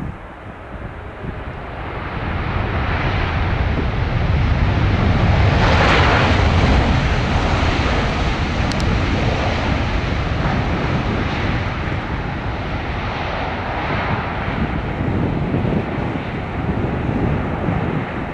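Airbus A350-1000's Rolls-Royce Trent XWB-97 turbofan engines as the jet passes close by. The sound builds from about a second in to its loudest around six seconds in, with a deep rumble under it, then eases only slowly and stays loud.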